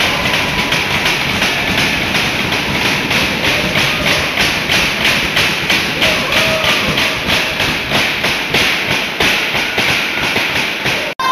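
Spectators in an ice rink pounding out a fast, steady beat of about four thumps a second, with crowd noise underneath. The sound cuts out for a moment near the end.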